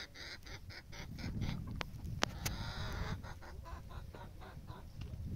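Poultry clucking in two quick runs of short calls, about five a second, over a low rumble.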